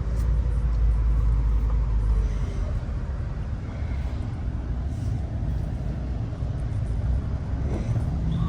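Car in traffic heard from inside the cabin: a steady low engine and road rumble, heavier for the first couple of seconds.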